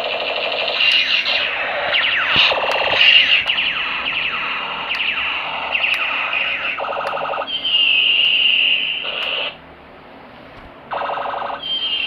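Toy projector gun playing its electronic sound effects: a run of quick falling laser zaps, then short buzzing pulses and a held high electronic tone. It stops for about a second and a half before another buzz near the end.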